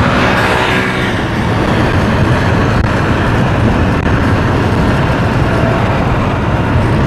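Steady road traffic noise heard from a moving motorbike: engine and tyre rumble from the bike and surrounding city traffic, with a heavy low rumble.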